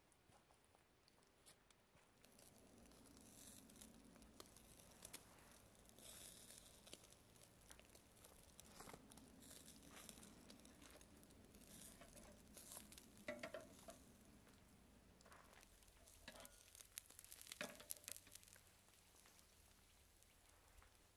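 Steaks on metal skewers sizzling faintly over hot charcoal, with scattered small crackles and a few sharper pops about thirteen and seventeen seconds in.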